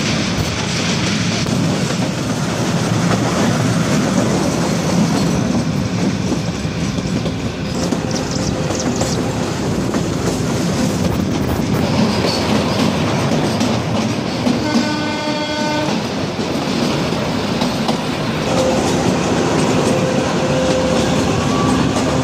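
Kalka–Shimla narrow-gauge toy train running: steady rumble and clatter of the coach's wheels on the rails, heard from an open coach doorway beside a close stone wall. One short horn blast, lasting about a second, about two-thirds of the way through.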